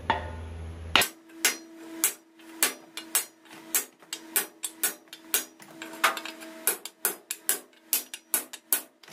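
A wooden block knocking again and again against the steel shell of a foundry sand muller, about two to three hits a second with a short metallic ring after each, tapping the shell down to seat it on the muller's base.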